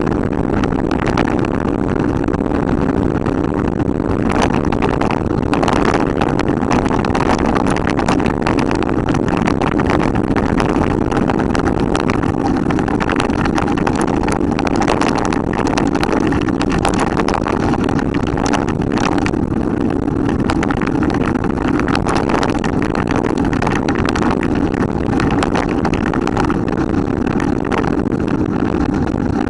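Steady rushing noise of a mountain bike descending fast on an asphalt road: wind on the camera microphone and tyre rumble, with scattered rattling clicks from the bike.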